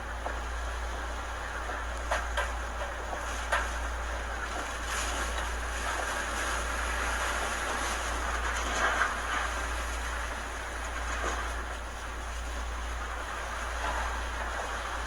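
Hurricane-force wind blowing steadily, with a low rumble and a few sharp knocks or rattles scattered through it.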